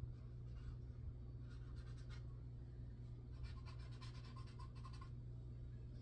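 Faint, scratchy strokes of a thin paintbrush on canvas, in two short spells about one and a half and three and a half seconds in, over a steady low hum.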